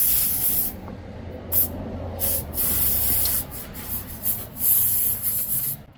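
Air hissing out of a nail puncture in a car tyre. It is steady at first, then comes in short spurts, and cuts off suddenly near the end.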